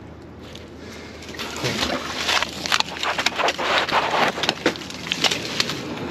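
Old metal toolbox dragged up a rocky, gravelly bank on a rope: irregular scraping, knocking and clattering that starts about a second and a half in.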